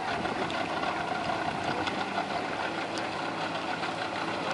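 Outboard motor of a racing inflatable boat running with a steady whine, over a steady hiss of water and wind.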